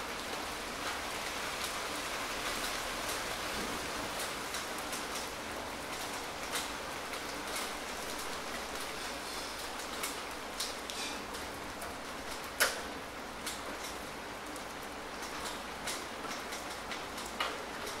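Steady rain falling, with close individual drops landing as sharp taps scattered throughout, one louder tap about two-thirds of the way through.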